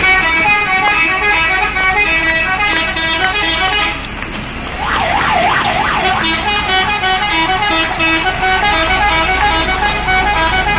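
Bus 'telolet' musical horn playing a rapid tune of short notes. Near the middle it breaks into a siren-like wail that rises and falls about four times.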